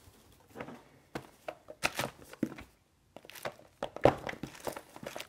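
A deck of reading cards being handled and shuffled: irregular rustles and soft slaps, loudest about two and four seconds in.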